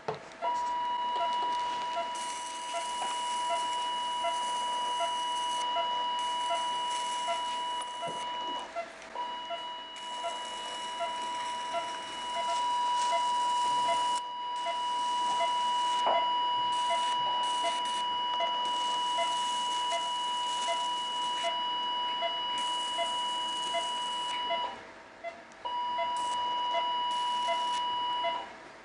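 Electrosurgical (diathermy) unit's steady activation tone as the cautery pencil cuts tissue. It is held for many seconds at a time with brief breaks, over a hiss. Faint short beeps repeat about twice a second underneath.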